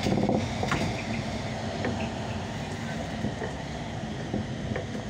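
Inside a Solaris Urbino 18 III articulated city bus under way: steady engine and road rumble with scattered short rattles and clicks from the cabin.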